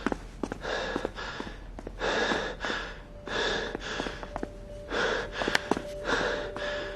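A person breathing hard and panting, with a quick run of loud in-and-out breaths and light clicks between them.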